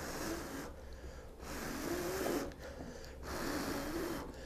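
A man blowing hard on a smouldering solid-fuel hand-warmer stick to bring it to a glow: about three long blows of roughly a second each, with short pauses to draw breath.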